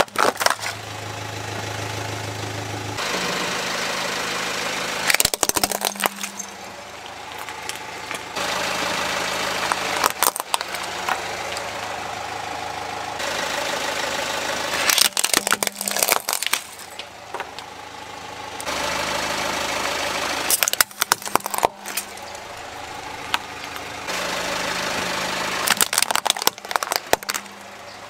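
Car engine idling while its tyre rolls over plastic and die-cast toy vehicles, crushing them with clusters of sharp cracking and crunching about every five seconds.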